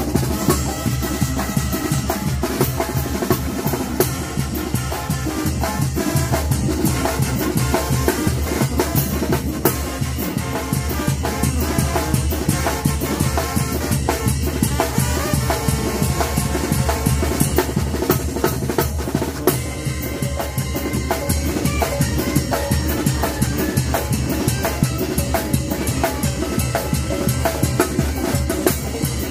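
Mexican banda percussion section playing a fast, driving rhythm on tambora bass drum with its mounted cymbal and snare drum. Wind instruments play along, more clearly in the second half.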